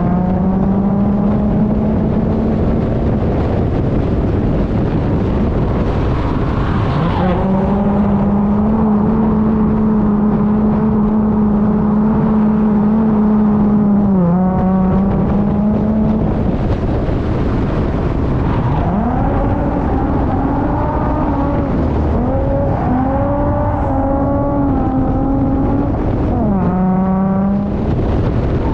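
Holden Commodore's Ecotec V6 held at high revs during a drift run. The engine note holds steady for several seconds at a time, with short dips and quick climbs back up as the throttle is lifted and reapplied.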